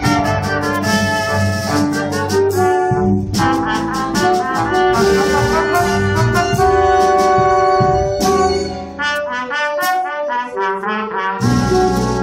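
Live small jazz ensemble playing: trumpet and saxophone lines over upright bass and keyboard. The low end drops away for a couple of seconds near the end, then comes back in.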